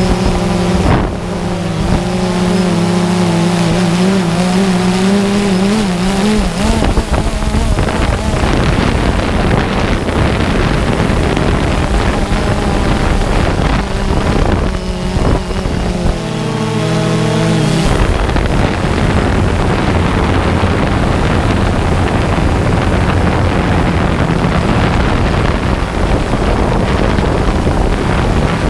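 Quadcopter drone propellers whining, with several wavering pitches, while the drone descends. After about six seconds the whine gives way to a steady rushing noise of propeller wash and wind. The whine returns briefly about two-thirds of the way through.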